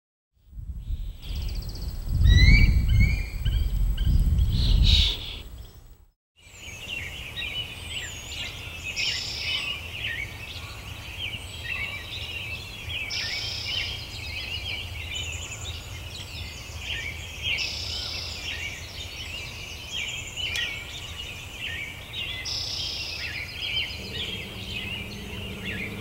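Many songbirds chirping and singing together, with one bird's song phrase recurring about every four seconds, over a low steady rumble. The first few seconds carry a louder low rumble under the chirps, which breaks off about six seconds in. A low hum comes in near the end.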